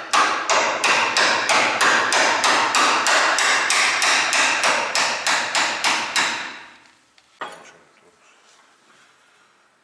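Hammer blows on metal in a fast, even series of about four strikes a second, each with a short ring. They stop about six and a half seconds in, and one last single knock follows.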